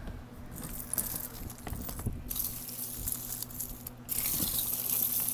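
A jumble of costume jewelry, chains, beads and metal watches, jingling and rattling as a hand rummages through it in a plastic tub. It is a continuous clatter of small clicks, broken by brief pauses about two seconds in and about four seconds in.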